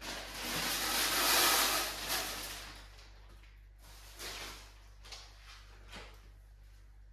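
A steady hissing noise fades out after about two and a half seconds, followed by a few light knocks and clicks of kitchen items being handled.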